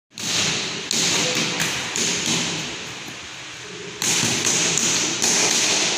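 Bare feet slapping and scuffing on a gym mat and judo uniforms rustling as two judoka grip and move each other, in a series of sudden short bursts.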